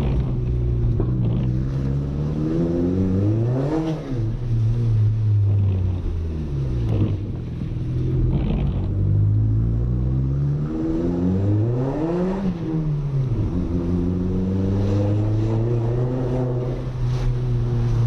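Audi A3's 1.8-litre 20-valve turbo four-cylinder engine under way, its revs climbing and falling back twice, about four seconds in and again about twelve seconds in.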